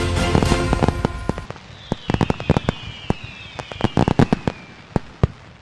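Fireworks: a string of sharp bangs and crackles with falling whistles, as background music fades out about a second and a half in.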